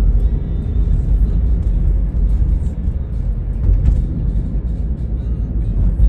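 Road and engine noise of a moving car heard from inside the cabin: a steady low rumble.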